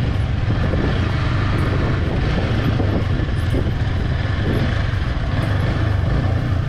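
Yamaha R15 V3 motorcycle's single-cylinder engine running steadily at low speed while the bike rides over a rough dirt-and-stone track.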